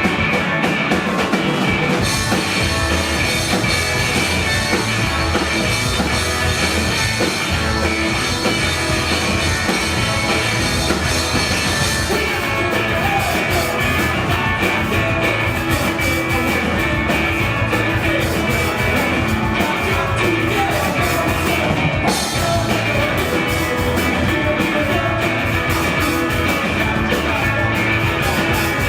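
Live rock band playing a fast-paced song loudly, with drum kit and electric guitar.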